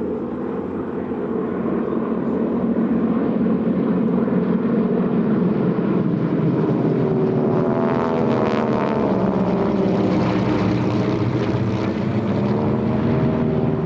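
Formation of North American T-6/SNJ Texans, their nine-cylinder Pratt & Whitney R-1340 radial engines and propellers running together. The sound grows louder over the first couple of seconds, then takes on a sweeping, swirling quality as the planes pass overhead from about eight seconds in.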